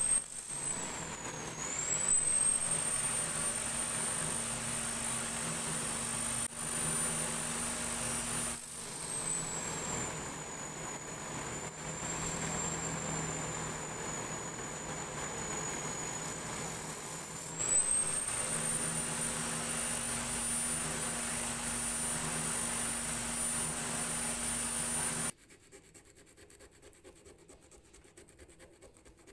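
Power tool's sanding disc spinning with a high motor whine and the hiss of steel pipe-wrench parts being ground against it; the whine drops in pitch while a part is pressed hard to the disc, between about 9 and 17 seconds in. The sound cuts off sharply about 25 seconds in.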